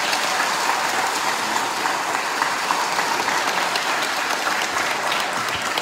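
A large audience applauding, dense and steady.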